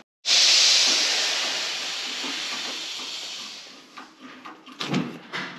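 Pressurised gas hissing out of a refrigerator's sealed-system tubing as the filter drier is cut out. It starts suddenly and fades away over about three and a half seconds, followed by a few light knocks from handling the parts.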